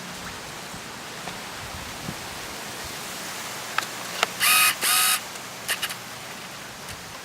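Two short mechanical whirs about half a second apart, typical of a DSLR kit lens's autofocus motor (Canon EF-S 18-55mm) heard through the camera's own microphone. A few small clicks come before and after, over a steady hiss.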